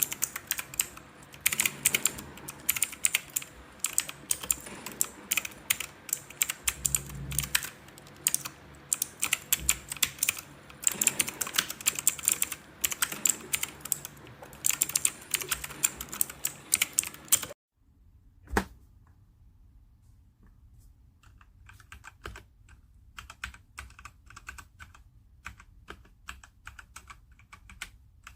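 Rapid typing on a Machenike K500 B61 60% mechanical keyboard, a dense stream of key clicks. About two-thirds of the way through the typing cuts off suddenly; one click follows, then typing resumes, quieter and sparser.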